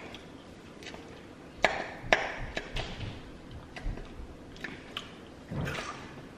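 Plastic fork picking and stabbing through chopped salad, giving a run of sharp irregular clicks and short rustling scrapes.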